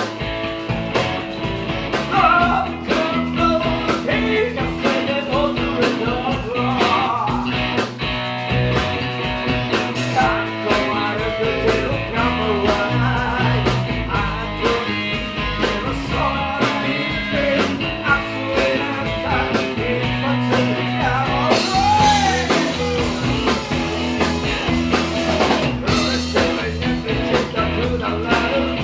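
Rock band music with guitar playing steadily throughout.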